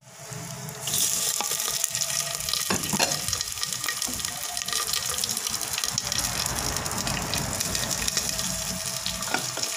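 Raw chicken pieces tipped into hot oil and frying onions in a clay pot. A loud sizzle breaks out about a second in and carries on as steady frying, with scattered pops and clicks.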